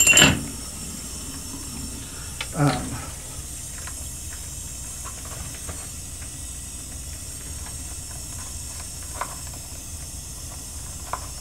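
Steady background hiss, with a loud short sound right at the start, a brief voice-like sound about two and a half seconds in, and a few faint ticks later on.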